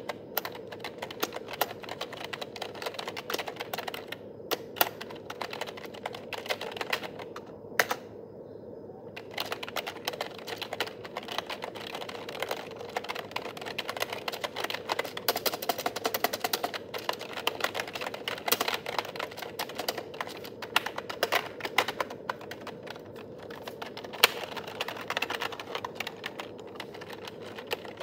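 Continuous typing on a Nubwo NK-30 rubber-dome (dome-switch) gaming keyboard: a dense stream of key clicks, with brief pauses about four and eight seconds in.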